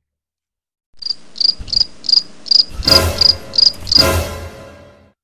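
Cricket chirping: about nine evenly spaced high chirps, roughly three a second. Two heavy hits come about two and three seconds in, and the second rings out and fades.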